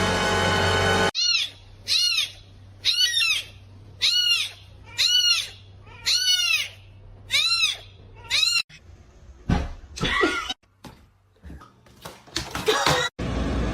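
A kitten mewing over and over: about ten short, high-pitched cries, each rising and falling, roughly one every three quarters of a second, then a few rougher sounds near the end. A burst of music plays briefly at the start.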